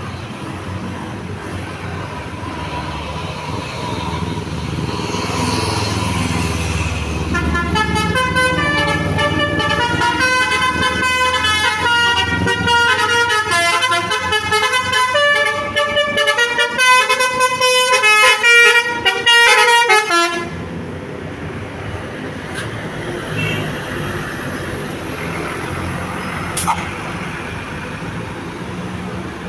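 Basuri V3 telolet musical air horn on a vehicle playing a fast multi-note tune for about thirteen seconds, then cutting off suddenly. Vehicle engine noise grows just before the horn starts, and traffic noise continues after it stops.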